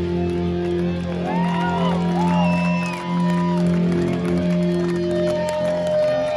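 Live hardcore band's amplified music ringing out in long held tones, with cheers and whoops from the crowd.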